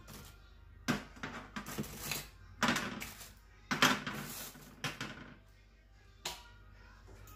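Half-shell oysters knocking and scraping as they are set down on a metal baking tray, with ice rattling in a plastic bag as they are picked out: a run of clacks through the first five seconds, then a single clack near the end.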